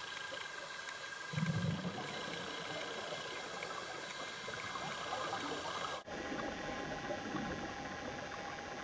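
Underwater ambience heard through a dive camera: a steady hiss with faint ticks and a short low rumble about a second and a half in. After about six seconds the hiss becomes duller.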